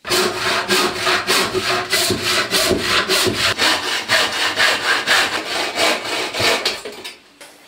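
Hand saw cutting a piece of timber in quick, regular back-and-forth strokes, about four a second, stopping near the end.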